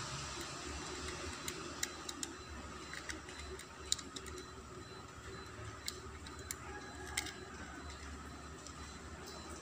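Scattered small clicks and taps of fingers working the plastic SIM card slots of an opened feature phone, a few a second at most and irregular, over a steady low background hum.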